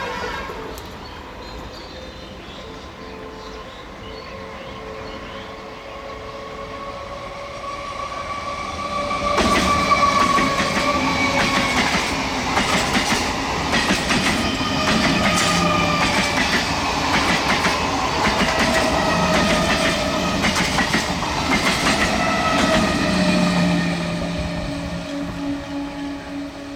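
Indian Railways passenger train passing close by. After a quieter approach it gets suddenly loud about a third of the way in, with wheels clattering over rail joints and high squealing tones from the wheels. It fades slightly near the end.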